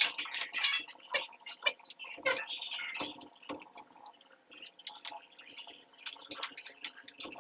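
Water dripping and spattering in irregular drips and small taps from a leaking PVC water-line joint under a hydrostatic pressure test.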